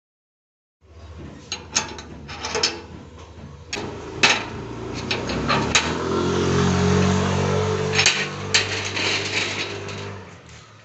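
Metal clicks and clanks of a padlock being opened and the steel slide bolt of an iron gate being drawn back. A low steady hum swells under the clanks in the second half and fades near the end.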